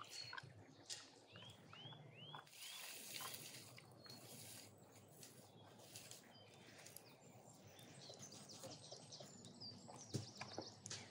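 Faint outdoor ambience of birds chirping, with a quick run of four arched chirps about a second and a half in. Light handling clicks of onion slices going into a metal pan, and one sharp tap near the end.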